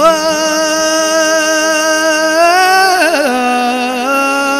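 A man singing one long held "o" in Albanian tallava style: the note slides up at the start and is held with a wavering vibrato, then, about three seconds in, a quick ornamental turn drops it to a lower held note. A steady drone runs underneath.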